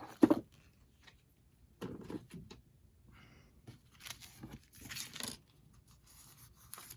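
Handling noises from bookbinding work: a sharp tap just after the start, then a few short rustling and scraping bursts of paper or board being handled.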